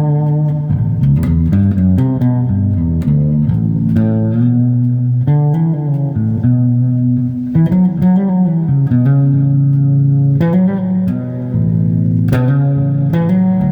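Fretless bass guitar played solo: a steady run of plucked, ringing low notes, some held for a second or more, moving from pitch to pitch.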